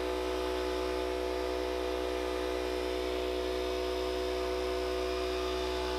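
Air compressor running steadily: a constant motor hum made of several steady tones, without change.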